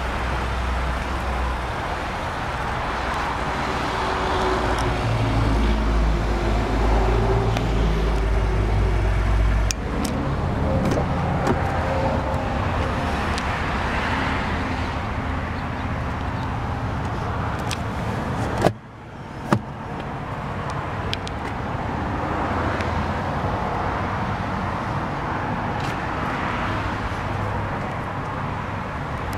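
Steady outdoor road-traffic rumble. About two-thirds through there are two sharp knocks roughly a second apart.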